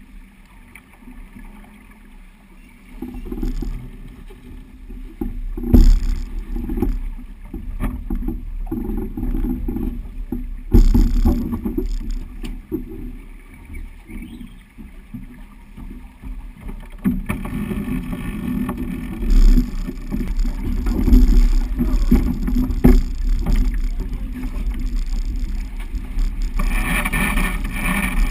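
Sailing yacht under way in a stiff breeze: wind buffeting the microphone over water rushing past the hull, with a few sharp thumps. The rushing grows after the middle and turns into a louder hiss of breaking wash near the end.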